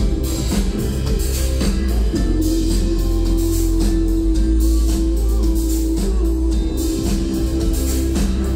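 A live band playing amplified music, with electric guitar, bass and drums, heavy in the bass.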